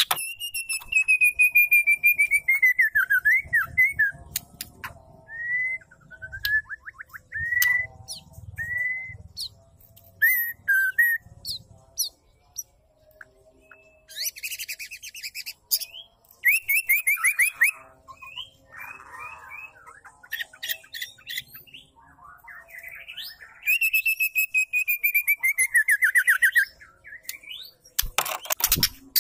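Female white-rumped shama singing: long falling whistles that dissolve into rapid trills, strings of short rising whistled notes, and harsh rattling chatter in the middle, with a long falling trilled phrase near the end.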